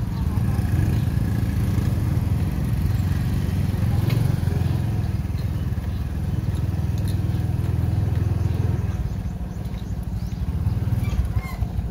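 Steady low rumble of a moving motorbike: the engine running steadily, mixed with wind buffeting the microphone.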